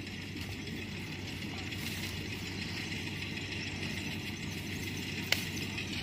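Steady engine rumble of a combine harvester working in the rice field, with one sharp click about five seconds in.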